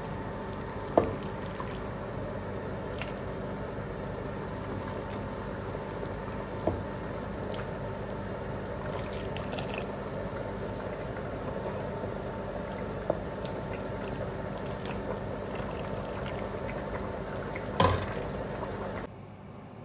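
Thickened chicken noodle soup being dished out: liquid pouring and splashing into a bowl, with a few sharp clinks of the serving utensil spread through it.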